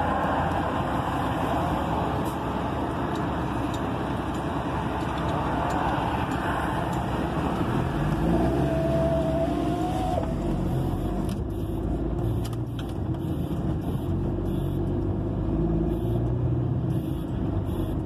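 Road vehicle noise: a semi-trailer container truck passes close by at the start, its tyre and engine noise fading over the first several seconds, then a steady low engine running with a brief rising tone about eight seconds in.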